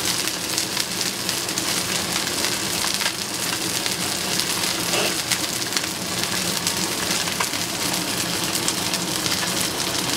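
Salmon fillet sizzling steadily as it pan-sears in a nonstick frying pan, with fine crackling pops throughout.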